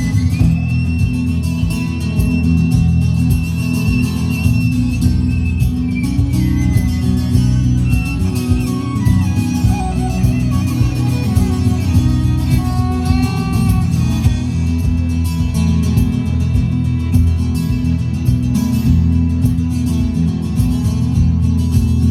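Music with guitar, over a dense steady low accompaniment; a high held note slides slowly downward over the first ten seconds or so.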